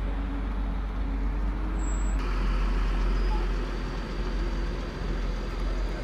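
Diesel engine of a wheeled M1117 Armored Security Vehicle running in a steady low rumble as the vehicle drives close by. The sound changes abruptly about two seconds in.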